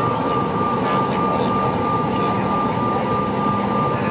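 Cabin noise of a Mitsubishi CRJ-900LR taxiing on its General Electric CF34 turbofan engines: a steady rush with a constant high whine over a lower hum.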